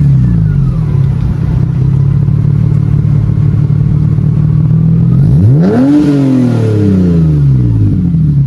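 Mitsubishi Eclipse with an aftermarket Invidia N1 cat-back exhaust, revved in neutral. It drops back to a steady idle at the start, then one quick blip about five seconds in climbs sharply and falls back to idle over about two seconds.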